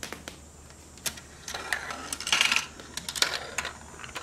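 A marble running down a plastic Gravitrax marble run, clicking and clattering on the track pieces, with a longer rattling stretch about two seconds in. It passes cleanly through a 3D-printed drop tile.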